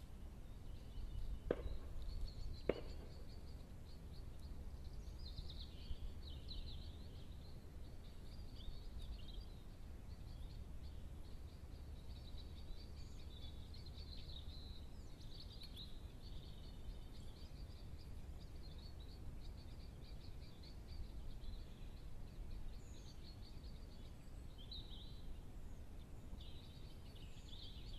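Faint outdoor ambience: a steady low rumble, with small birds chirping high and irregularly throughout. Two sharp clicks come in the first three seconds.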